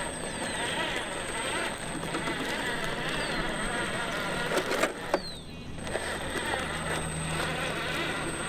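A 1/10-scale RC truck running on a trail: electric drive and tyres churning over dirt in a steady, busy noise that breaks off briefly about five seconds in.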